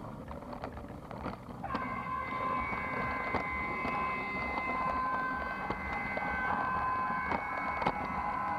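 Battery-powered toy train running along its track: a steady high motor whine that sets in about two seconds in, with a few sharp clicks from the wheels over the track.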